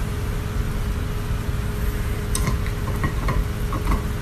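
Dog gnawing a chew toy, a scatter of short clicks and crunches over the second half, over a steady low hum and rumble.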